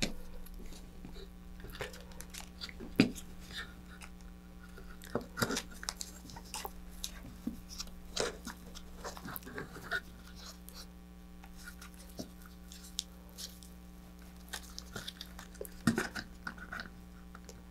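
Hands handling a foam-wrapped battery and plastic zip ties on a fiberglass board: scattered small clicks, taps and crinkly rustles, with a few sharper clicks around the 3, 5.5, 8 and 16 second marks, over a steady low hum.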